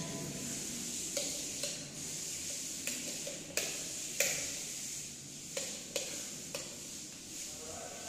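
Sharp plastic clicks, about eight over several seconds, as the rocker covers of a multi-gang wall light switch are pressed and snapped into place, over a steady hiss.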